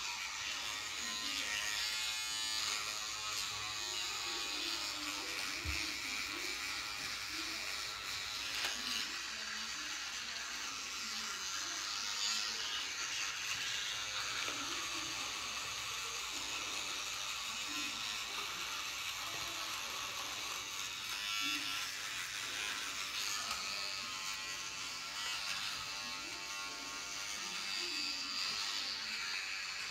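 Battery-powered electric toothbrush buzzing steadily while it brushes teeth.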